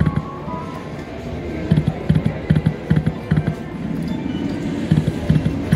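Poker machine playing its spin sounds and music as the reels spin and stop, with a run of short low thuds.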